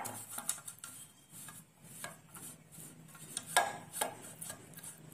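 Silicone pastry brush rubbing butter around the inside of an aluminium cake tin: soft scrubbing with scattered light taps and clinks of the brush against the metal, and a louder knock about three and a half seconds in.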